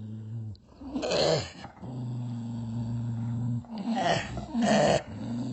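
Dog growling in long, low, steady rumbles, broken by three short, louder outbursts: one about a second in and two close together near the end.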